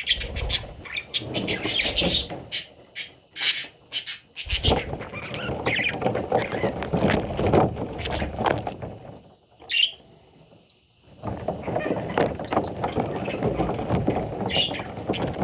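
Parrots chattering, with many short chirps and squeaks. The sound drops out for about a second and a half partway through, broken only by a single short chirp, then the chatter resumes.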